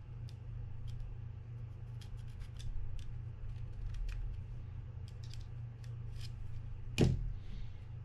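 Small metal clicks and scrapes of a precision screwdriver picking and prying at the pinion gear and bearing of a corroded Penn Spinfisher 5500SSV spinning reel, over a low steady hum. A louder knock comes about seven seconds in.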